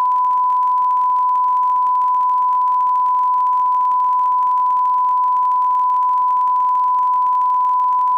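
Loud, steady electronic test tone held at one unbroken pitch, the reference line-up tone of a broadcast tape.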